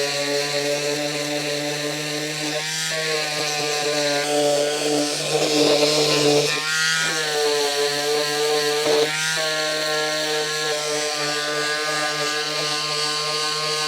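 Electric power tool motor running steadily at a fairly constant pitch. It bogs down briefly about 3, 7 and 9 seconds in, as if the tool is pressed into work, then speeds back up.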